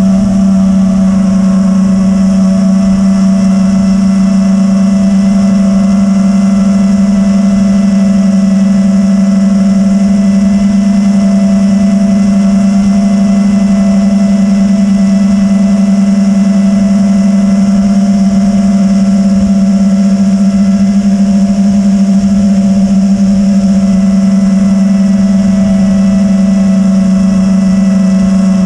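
FPV drone's electric motors whining at a steady, unchanging pitch, heard through its onboard camera, with rough wind noise over the microphone.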